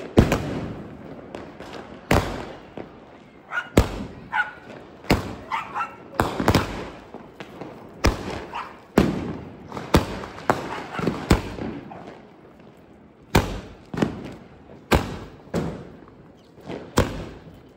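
Firecrackers bursting: an irregular run of about twenty sharp bangs, some in quick pairs, with a pause of a couple of seconds about twelve seconds in.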